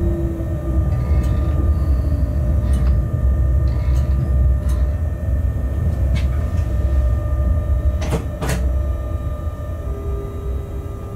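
Steady low rumble of a locomotive running slowly, with a few faint steady humming tones and scattered light clicks, heard from inside the cab. Two sharp knocks about half a second apart come about eight seconds in, and the rumble eases near the end.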